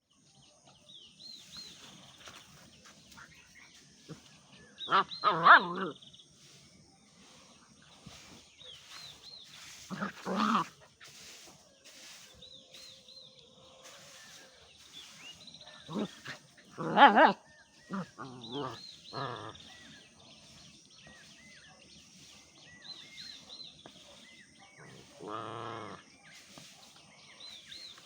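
German Shepherd puppy barking in about five separate outbursts, the last one longer and drawn out, the sign of an angry puppy.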